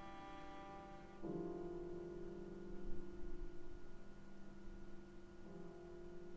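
Instrumental music of long held chords, changing to a new chord about a second in and again near the end.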